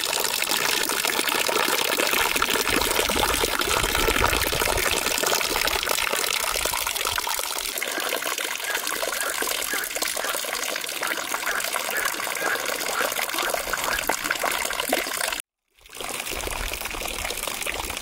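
Water running steadily with a dense, trickling rush. The sound cuts out for a moment about three-quarters of the way through, then carries on a little quieter.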